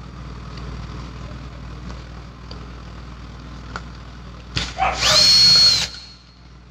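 Cordless drill-driver backing out a screw from a rotary hammer's armature assembly. It gives a few light clicks as it is set on the screw, then spins up with a rising whine, runs steadily for about a second near the end, and stops.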